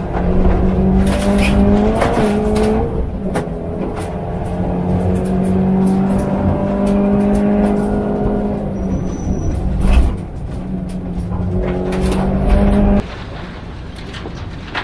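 Subaru WRX STI rally car's turbocharged flat-four engine pulling hard on a gravel forest road. Its pitch climbs and then steps down at each gear change, with sharp knocks from the rough gravel. Near the end the engine note drops abruptly.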